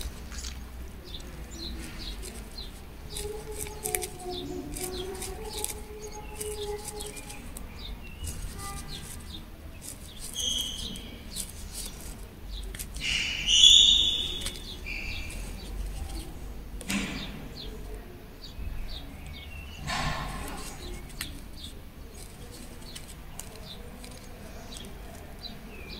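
Quiet crochet work: faint ticks and rustles of the hook and thread as slip stitches are worked round the piece, over a low steady hum. A few short high bird chirps come about ten seconds in and again around fourteen seconds, the loudest sounds here.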